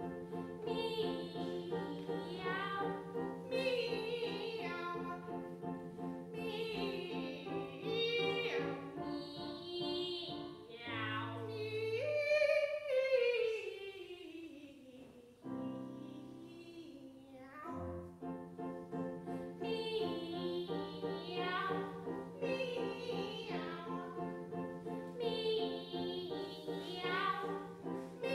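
Two women's voices singing a comic cats duet in sung meows, with piano accompaniment. About halfway, one long, loud sliding wail rises briefly and then falls in pitch over about three seconds, followed by a couple of quieter seconds of piano chords before the meowing resumes.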